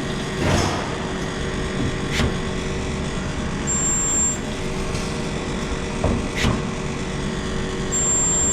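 Resistance spot welder running with a steady loud hum. A short high-pitched whine about half a second long sounds about four seconds in and again near the end, and a few sharp knocks sound in between.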